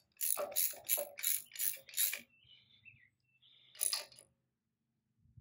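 Socket ratchet wrench clicking as a nut is tightened: about six quick strokes in the first two seconds, then one more just before four seconds.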